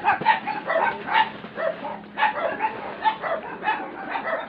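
Dog barking over and over, about two to three barks a second.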